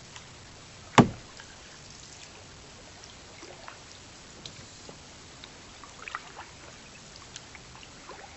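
Canoe paddling on a quiet stream: water dripping and trickling off the paddle, with small scattered ticks and splashes. About a second in there is one loud, sharp knock that rings briefly, with a few lighter clicks near the six-second mark.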